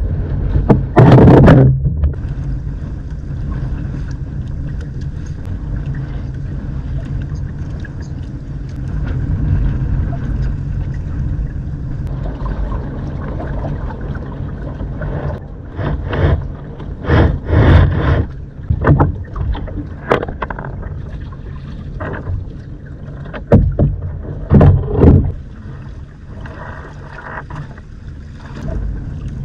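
A steady low drone, like a motor running, broken by several clusters of loud knocks and thumps.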